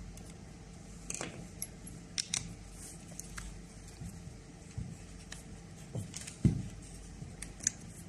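Scattered light metallic clicks and clinks of small parts and tools being handled, with a heavier knock about six and a half seconds in.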